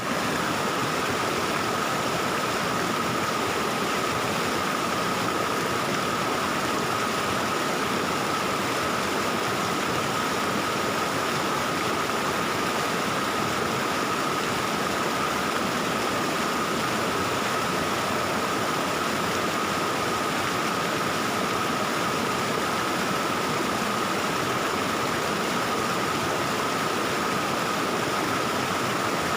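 Stream water flowing and babbling in a steady, unbroken rush. A faint steady tone runs through it.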